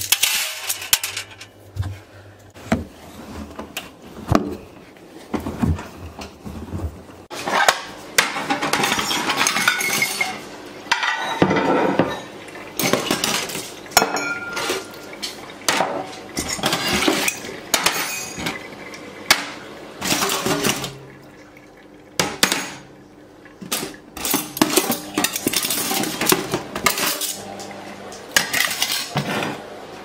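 Crockery and cutlery clinking and clattering in a stainless-steel kitchen sink as dirty mugs, knives and spoons are handled, in a long run of separate knocks and clinks.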